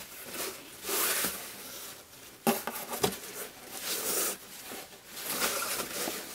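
Cotton quilting fabric panel rustling and swishing as it is lifted, shaken out and folded by hand, in several separate swishes, with one sharper tap about two and a half seconds in.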